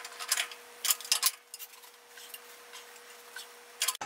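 Metallic clicks and ticks in a few short clusters as a large dial-type hand torque wrench is heaved on a nut and socket, tightening it to over 500 foot-pounds.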